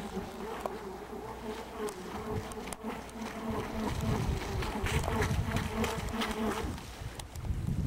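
Radio-controlled model power boat's small motor buzzing at speed across the water, its pitch wavering slightly. The buzz cuts off about a second before the end, leaving a low rumble.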